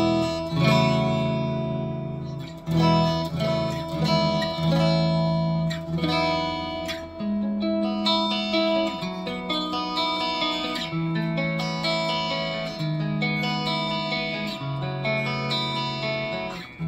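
Solar AB1.6TBS electric guitar played clean on its neck pickup through an amplifier: picked chords and single notes ringing, changing about once a second.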